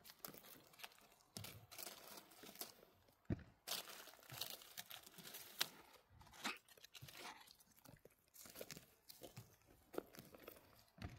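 Faint, irregular rustling and crackling of forest-floor litter with small sharp snaps, from hands picking black mushrooms and moving through the undergrowth.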